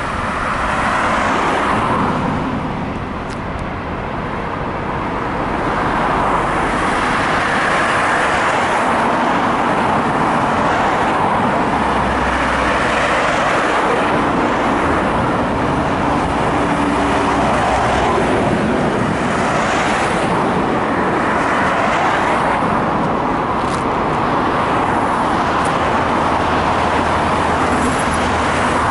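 Road traffic: cars and a bus driving past close by, a dense steady noise that swells as each vehicle goes by.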